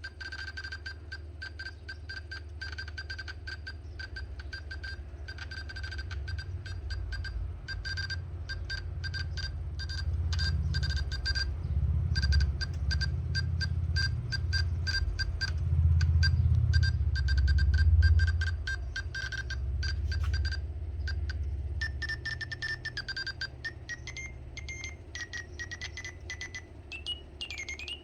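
Morse code sent as a single high beep tone, keyed on and off in an irregular run of short and long beeps, over a low rumble. Near the end the keying gives way to a longer tone that wavers and slides up in pitch.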